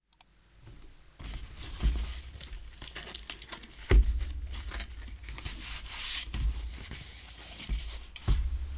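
Hands handling and opening the cardboard retail box of a Focusrite Scarlett Solo 4th Gen audio interface: packaging scraping and rustling, with several knocks. The loudest knock comes about four seconds in.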